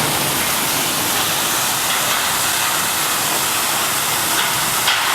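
Brush-roller washing machine for root vegetables running with its water spray on: a loud, steady rushing hiss of water and machinery.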